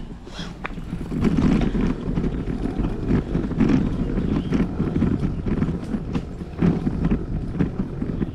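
Wind noise buffeting the microphone during a bicycle ride, with scattered light clicks and rattles from the bike.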